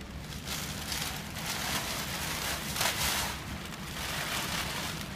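Black plastic bag rustling and crinkling as it is picked up and handled, in irregular swells.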